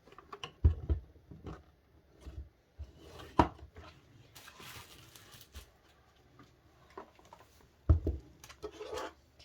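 DVD box sets and their plastic cases being handled during unboxing: scattered clicks and knocks, with two heavier thumps, one about a second in and one near the end, and a short rustle of packaging around the middle.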